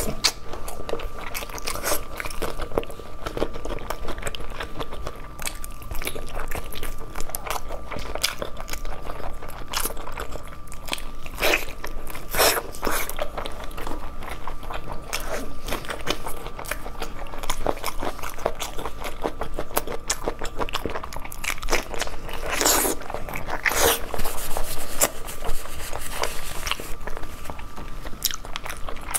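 Close-miked mouth sounds of a person chewing sticky, glazed braised meat, with wet smacks and clicks throughout and a few louder bites. A faint steady high hum runs underneath.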